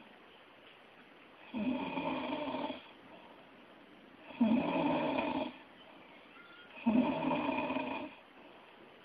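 Snoring in a steady rhythm: three snores, about two and a half seconds apart and each about a second long, with quiet breathing between.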